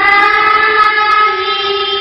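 Horror sound effect: a loud, sustained drone of several steady tones held together over a low rumble, swelling in just as it begins.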